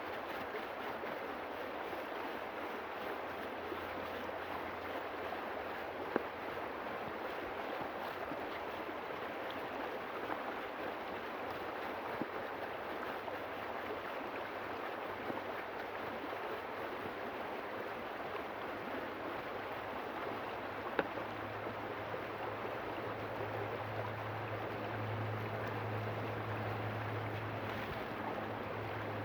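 River water rushing steadily, with a few faint clicks and a low hum that grows over the last several seconds.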